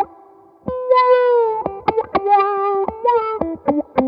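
Electric guitar played through a SolidGoldFX Supa Funk envelope filter set for a vocal, talk-box-like sweep. After a short pause near the start comes one held note, then a run of short, sharply picked notes.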